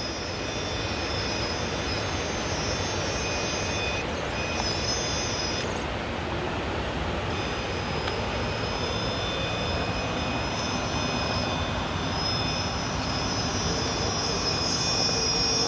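Axial SCX10 II RC rock crawler's electric motor and geared drivetrain whining thinly as it crawls slowly over rocks, against a steady rushing background noise.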